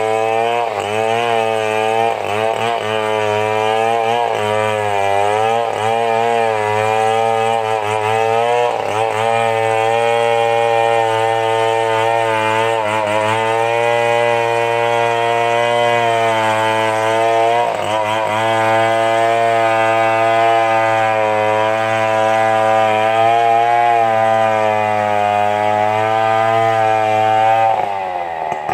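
Stihl 070 two-stroke chainsaw running under load as it cuts wood. Its engine speed dips and recovers repeatedly in the first third, then holds mostly steady, and the revs drop sharply near the end.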